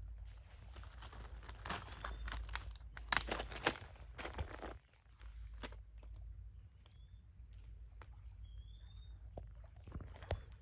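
Close crinkling, crunching and clicking handling sounds for about the first five seconds, loudest around three seconds in, then scattered clicks with a few short high chirps.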